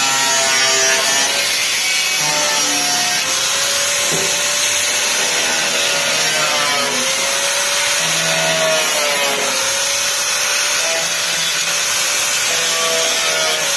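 Electric angle grinder cutting steel on a gate panel, running continuously; its motor whine sags in pitch and picks back up several times as the disc bites into the metal.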